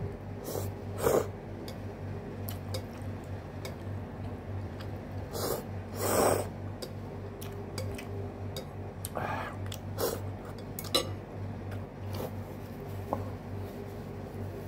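Eating noodles with chopsticks: a few short slurps and chewing noises, with several sharp clicks, over a steady low hum.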